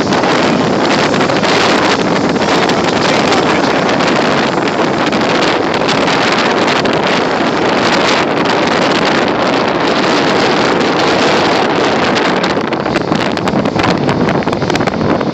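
Steady wind noise on a microphone held at an open window of a moving train, over the train's running noise.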